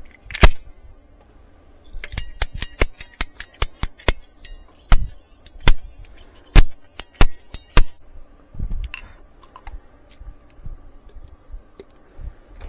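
A run of sharp, irregular clicks and knocks with a brief ringing on some: hard plastic pipe fittings and tools being handled and fitted together on a condensate line.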